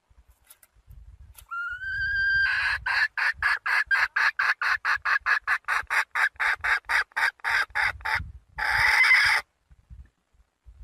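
Young red junglefowl hen calling to a rooster: a rising note, then a rapid even run of short clucks at about five a second for some six seconds, ending in one longer, harsher call. Used as a lure call to draw wild junglefowl cocks.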